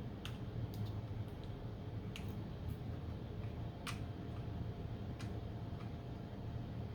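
Scattered light clicks and ticks of small parts being handled, with the sharpest about four seconds in, over a steady low hum.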